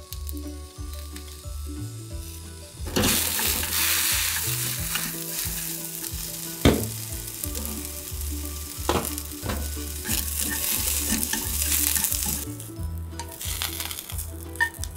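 Sliced lotus root and green beans sizzling in a frying pan while tongs knock against the pan as the vegetables are turned. The sizzle starts loud about three seconds in and fades near the end. Soft background music with a low pulsing beat plays throughout.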